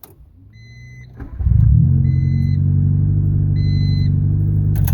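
A 1989 Honda Civic Wagovan's four-cylinder engine starts about a second in, catches at once and runs at a steady idle. This is the crank-no-start cured by tapping the main relay. A dash warning chime beeps three times, about a second and a half apart.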